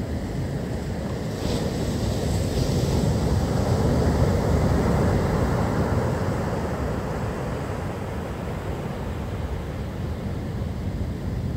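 Rough storm surf breaking and washing up the beach: a continuous low rumble that swells for a few seconds in the middle, with wind buffeting the microphone.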